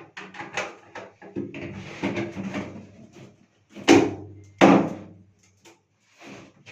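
Short knocks and clatter of things being handled, with two loud thuds about four and four and a half seconds in.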